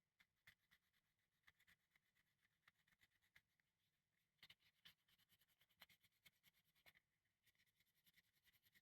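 Faint scratching and scraping strokes, irregular at first and then in a quick run of several a second near the end, as of hand work on a metal saw.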